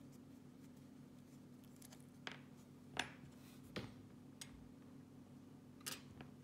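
A handful of light clicks and taps from handling a padlock and small picking tools, the sharpest about three seconds in, over a faint steady hum.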